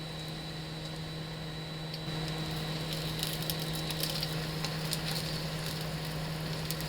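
Food sizzling in a frying pan, with small crackles and pops that grow livelier about two seconds in, over a steady low hum.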